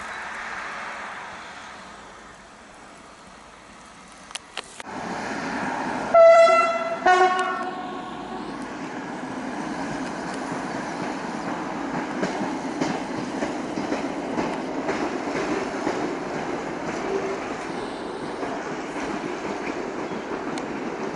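A rail horn gives two short blasts, the second lower in pitch, about six seconds in. Then the PSL 6800 track maintenance draisine and its wagons run steadily along the track, with faint clicks over the rail joints.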